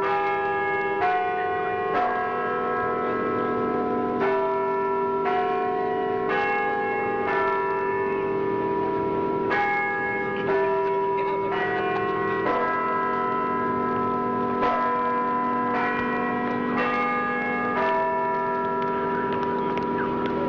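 Bells ringing, with a new strike about once a second at changing pitches, each one ringing on under the next.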